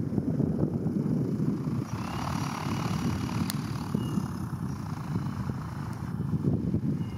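Light propeller-driven motor glider running on a grass airstrip, its motor and propeller audible under heavy wind buffeting on the microphone.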